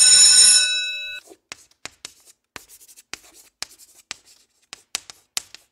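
A bell-like chime rings out and fades by about a second in, followed by chalk scratching on a blackboard in a run of short, quick strokes as a caption is written.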